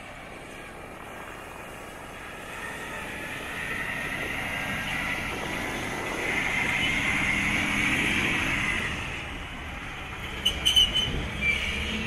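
Heavy road-train truck going by, its engine and tyre noise building to a peak about eight seconds in and then easing off, followed by a few sharp clanks near the end.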